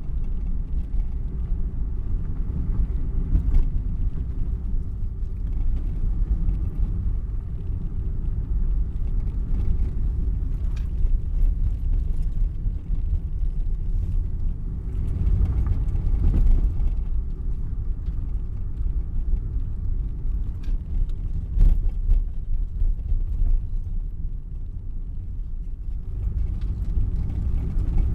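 Car interior while driving: steady low engine and road rumble, with a few brief knocks scattered through it.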